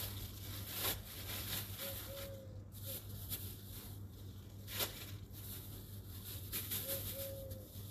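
Thin plastic bags rustling and crinkling as they are pulled about and opened by hand, with sharp crackles about a second in and again near five seconds. A steady low hum sits underneath.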